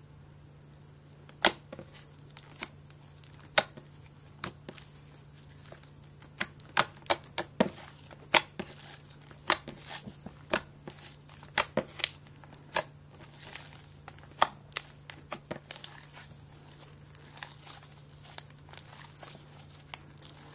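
Slime being poked, stretched and squeezed by hand, making irregular sharp clicks and pops, sparse at first and coming thick and fast through the middle.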